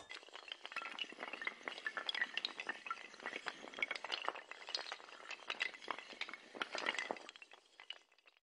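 Toppling-dominoes sound effect: a dense, rapid clatter of many small hard clicks and clinks as a long chain of tiles falls, stopping abruptly near the end.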